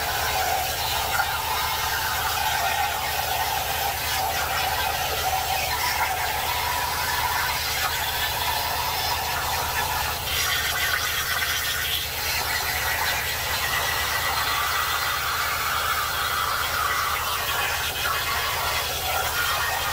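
Jasic Cut 45 air plasma cutter on a CNC table cutting sheet metal: a steady, loud hissing screech from the arc, its tone shifting slightly as the torch travels along the cut.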